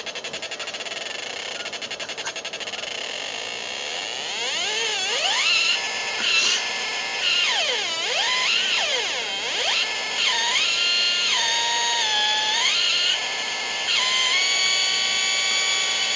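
Homemade breadboard synthesizer, a Schmitt-trigger NAND gate oscillator driving a 386 amplifier and small speaker, giving a buzzy tone. It opens as a fast pulsing buzz. From about four seconds in it sweeps up and down in pitch as the frequency is adjusted, then jumps between held notes in the second half.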